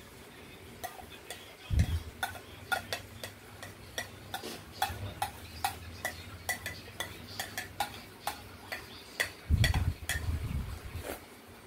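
A spoon scraping and tapping against a plate as food is scooped up, a run of quick clicks about two or three a second. Dull thumps come about two seconds in and again near the end.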